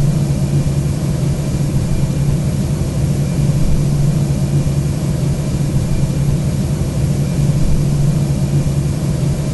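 Airbus A320 flight-deck background noise: a steady rushing noise with a constant low hum beneath it.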